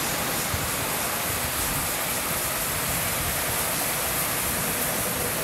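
Steady rushing noise of O gauge toy trains rolling on three-rail track, even and unbroken with a strong hiss.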